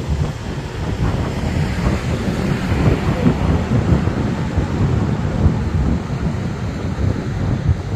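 Wind buffeting the microphone: a loud, gusty rumble.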